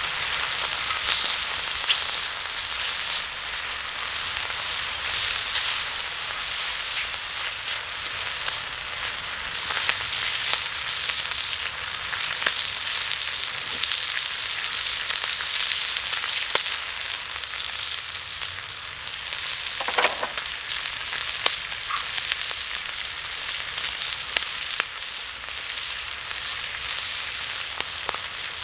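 Meat sizzling on an iron plate heated over a campfire: a steady frying hiss with scattered pops, the sharpest about twenty seconds in.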